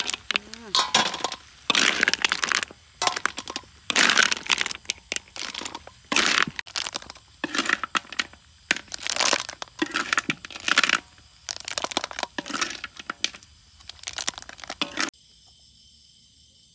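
Snail shells clattering and scraping against a metal wok as a spatula tosses them, in irregular sharp bursts. Near the end it cuts suddenly to a steady chirring of insects.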